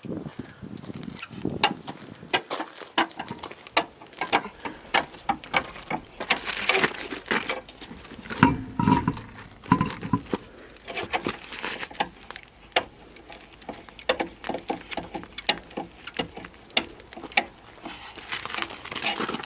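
Irregular clicks and knocks of tire-change work as the donut spare is fitted, with a few short scuffing noises.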